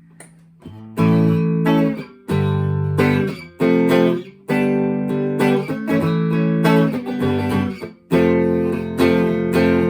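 Electric guitar on the middle pickup, played through a combo amp on a clean setting: strummed chords left to ring, a new chord about every second, starting about a second in. Picked up by a phone's microphone.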